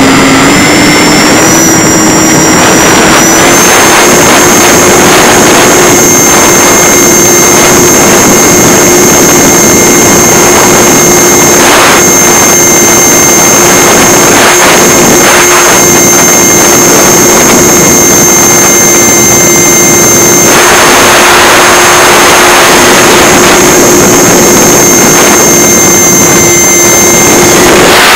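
Electric motor and propeller of a Multiplex EasyStar RC plane, heard loud from a camera strapped to its belly with wind rushing over the microphone: a steady buzzing drone with a thin high whine above it. The drone climbs a little in pitch over the first few seconds, then holds steady.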